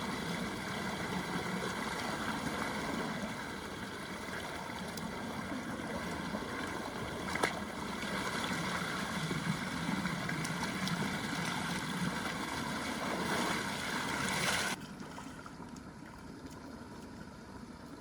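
A small motor running steadily, with one sharp click about seven seconds in. It stops abruptly about fifteen seconds in, leaving a quieter hiss.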